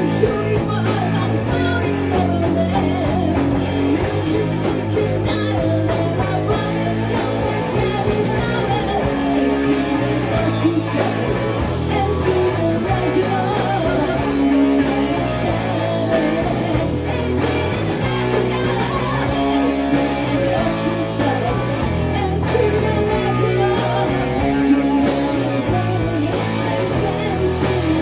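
Rock band playing a song: guitar and drum kit with a sung vocal line, steady and loud.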